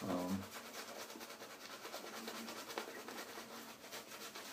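Faint scrubbing of a shaving brush working lather over the face.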